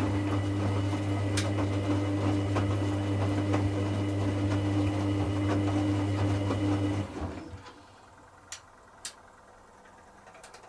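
Hoover Classica 1100 washing machine's drain pump humming steadily over a rush of water, near the end of the final rinse. The pump cuts off about seven seconds in, followed by two sharp clicks from the machine.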